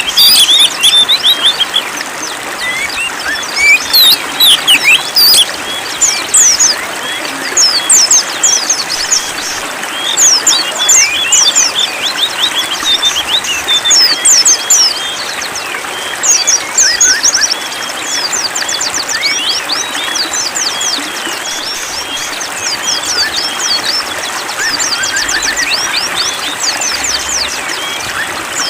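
Small songbirds chirping and singing in quick repeated trills over a steady trickle of running water.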